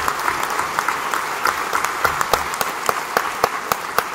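Audience applause in a hall, many hands clapping, thinning out near the end so that single claps stand out.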